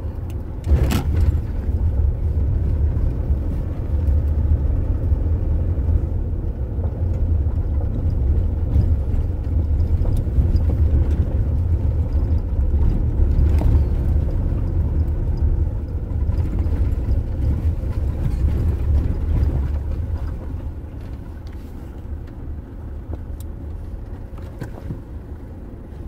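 Toyota Hilux pickup heard from inside the cab while driving over a rough, corrugated dirt road: a steady low rumble of tyres and suspension with scattered knocks and rattles. It gets quieter in the last few seconds.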